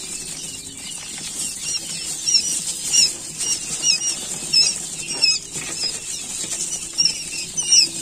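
Day-old quail chicks peeping: many short, high chirps overlapping one another, growing more frequent about two seconds in.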